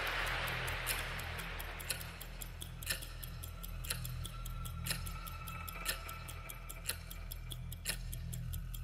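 Ticking-clock sound effect played over the concert sound system: a sharp tick about once a second with softer ticks between, over a low steady drone. At the start, crowd noise dies away.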